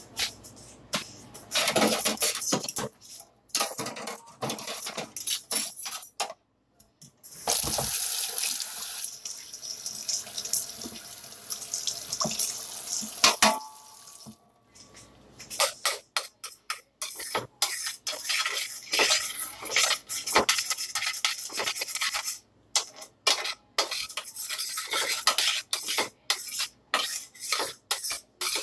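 A kitchen tap runs for about six seconds in the middle, starting and stopping abruptly. Around it come many short clatters and clinks of dishes and pans being handled.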